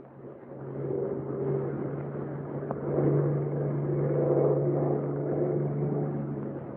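Bell P-39 Airacobra's Allison V-12 engine droning steadily in flight, swelling about half a second in and easing off slightly near the end.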